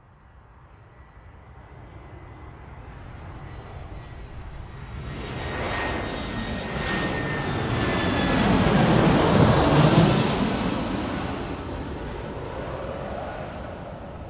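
Jet aircraft flying over on its landing approach: the engine noise swells steadily, is loudest about two-thirds of the way through, then fades away, with a high whine that drops slightly in pitch as it passes.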